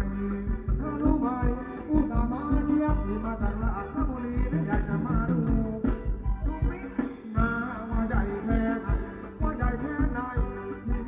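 Live Thai ramwong band music for dancing: a singer over a steady, driving drum beat.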